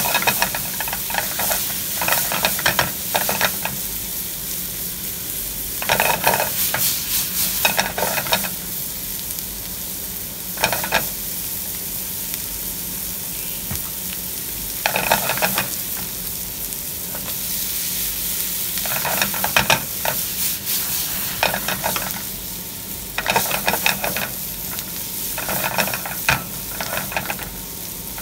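Chopped onions and whole spices sizzling in hot oil in a nonstick frying pan, browning. Every few seconds they are stirred, with short bursts of scraping and clatter against the pan.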